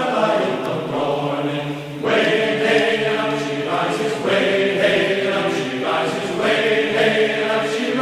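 Background music of sung voices in long held notes, changing every two seconds or so.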